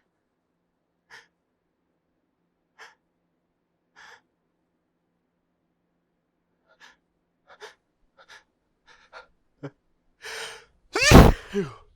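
A person's sneeze building up: short catching inhales, a second or more apart at first and then quickening, then a longer drawn-in breath and one loud sneeze about eleven seconds in, ending in a short falling voiced tail.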